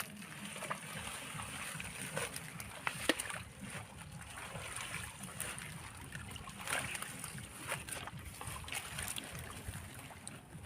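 Water splashing and sloshing in short, irregular bursts, over a steady low rumble.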